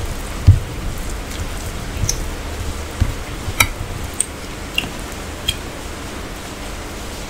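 Eating sounds: fingers squishing and mixing rice and curry on steel plates, with wet chewing and a low thump about half a second in. A few light clinks against the steel plates come between about three and a half and five and a half seconds in.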